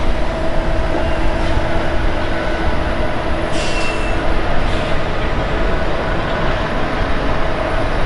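John Deere tractors' big diesel engines running steadily as they push and pack a pile of chopped ear corn: a low, even rumble, with a short higher squeal about three and a half seconds in.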